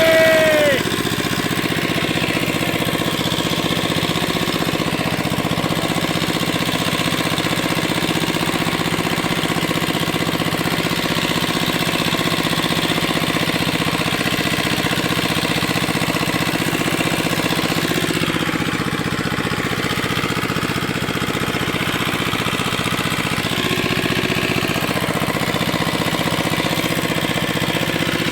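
A small engine running steadily at a constant speed, with no change in pace.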